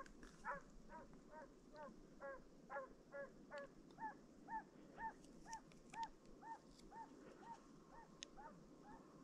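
Russian hound giving voice on a hare's trail: a faint, steady run of yelping bays, about two a second, pitched higher from about four seconds in.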